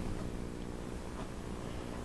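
Faint, steady background hum made of several even tones, with no distinct clicks or knocks.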